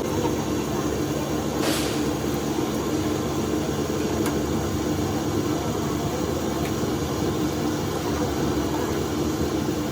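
A machine running with a steady drone, with a short hiss about two seconds in.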